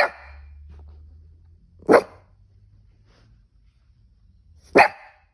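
A cavoodle giving three short, sharp single barks, a couple of seconds apart, that come with his hiccups.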